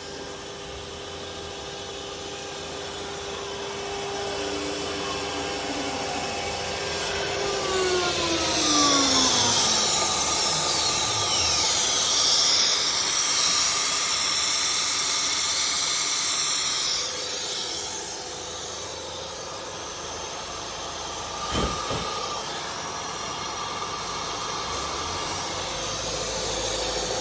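CNC router spindle running with a steady whine, then winding down about seven seconds in, its pitch falling. A loud hiss follows for several seconds, and a single sharp knock comes near the end.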